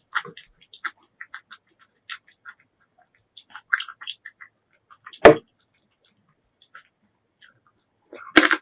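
Close-miked eating sounds: wet chewing and mouth smacks in short, scattered clicks, with one loud sharp crunch about five seconds in. A louder noise starts just before the end.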